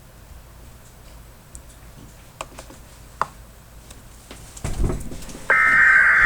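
Faint scattered clicks and a low thump, then the Emergency Alert System's SAME header data burst: loud electronic data tones start about five and a half seconds in and keep going.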